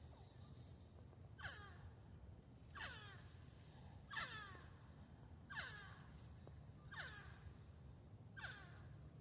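A bird calling six times, about one and a half seconds apart, each call falling in pitch, over a faint low rumble.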